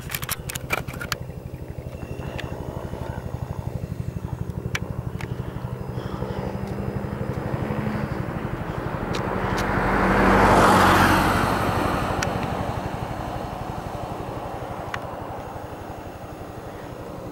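Bell 212 helicopter flying over, its two-bladed main rotor beating out a rapid, steady blade slap. It grows louder to a peak about ten seconds in, then fades as it moves away.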